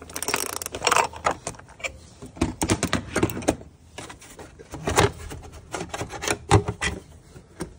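Runs of quick clicks from a ratchet wrench on the oil filter housing cap of a BMW N55 engine, then several sharp knocks, the loudest a little past the middle, as hands work at the plastic engine cover.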